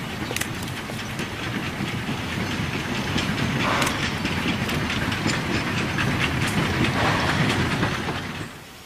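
Narrow-gauge steam locomotive working hard as it hauls a mixed passenger and goods train past: steam exhaust with the wheels clicking over rail joints. It grows louder as the train goes by, then drops away near the end.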